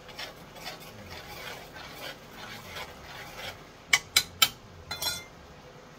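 A spoon stirring and scraping through gravy in a cast-iron pan, then three sharp knocks about four seconds in and a shorter clatter near five seconds.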